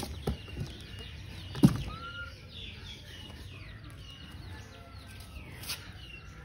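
Birds chirping over and over in short high descending calls, with a sharp click or knock about a second and a half in and a fainter one near the end.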